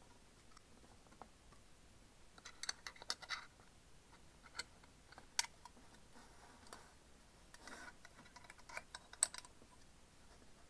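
A coin's edge clicking and scraping against the tin-plate rim of a Sakuma Drops candy tin's inner lid as it is pried at. Small sharp clicks come in bunches, one cluster a couple of seconds in and another near the end, with single clicks and a short scrape between.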